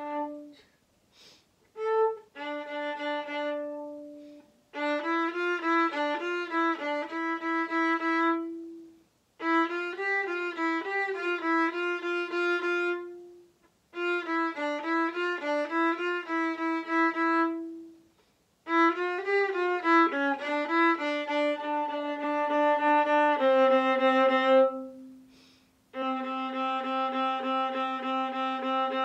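Solo viola played with the bow: phrases of quick, detached notes, each a few seconds long, broken by short rests, with a few longer held notes near the end.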